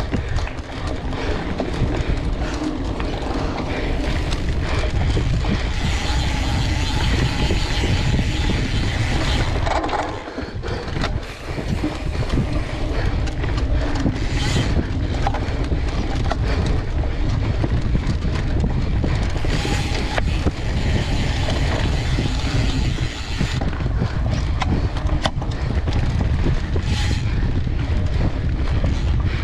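Mountain bike ridden fast down a dirt singletrack, heard from a camera on the bike: wind buffets the microphone over the hum of tyres on dirt, with frequent sharp rattles and clacks from the bike over bumps. The noise drops briefly about ten seconds in.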